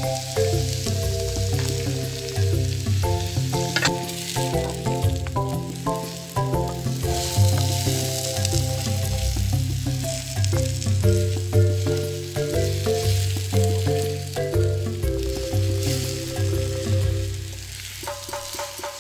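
Peppers, onions, mushrooms and egg sizzling in a frying pan, stirred with a wooden spatula. Background music with a melody and a steady bass line plays over it.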